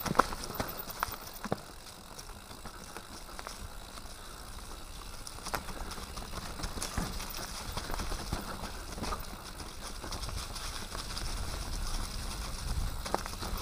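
Mountain bike descending a dirt forest singletrack: steady tyre and riding noise with a low rumble underneath, and scattered clicks and knocks as the bike rattles over bumps, the sharpest one right at the start.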